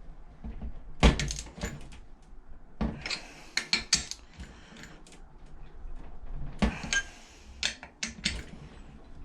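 Sharp metallic clicks and clinks in several short clusters from a torque wrench and socket working the Predator 212's cylinder head bolts, which are being tightened to 17 ft-lb.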